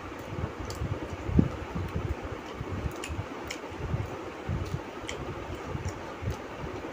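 Two people eating chowmein with their hands from steel bowls: irregular soft low thumps and faint small clicks, the loudest thump about a second and a half in, over a steady hiss.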